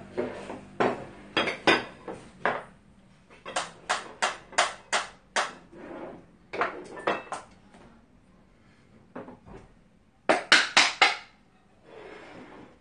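Ceramic dishes and bowls being set down and slid across a wooden table, a string of sharp clinks and knocks, with a quick run of four loud ones about ten seconds in.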